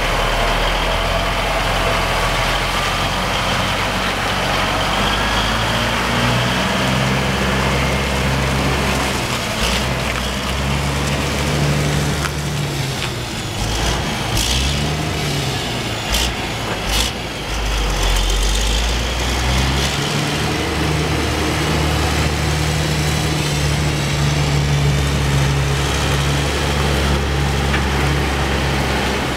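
Autocar heavy truck tractor's diesel engine running as it pulls away and drives off, the engine note rising and falling for a while midway, with a few sharp clicks around halfway.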